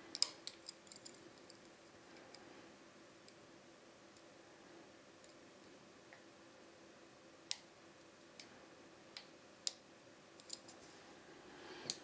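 Sharp, scattered metallic clicks of a hook pick and tension wrench working the special-profile pin tumblers of a Dom IX-6 KG euro cylinder as it is picked open. There is a burst of clicks in the first second, single clicks in the middle and a cluster near the end.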